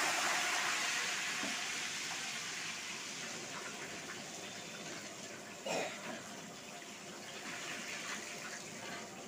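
Bhetki fish pieces deep-frying in a large iron kadai of hot oil: a steady sizzling and bubbling that is loudest at first and slowly dies down, with a short bump just under six seconds in.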